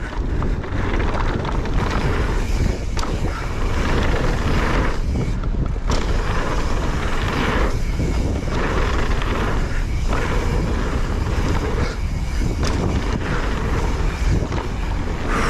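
Wind buffeting the microphone with a steady low rumble, along with rolling noise that swells and fades every second or two as the mountain bike moves along the dirt trail.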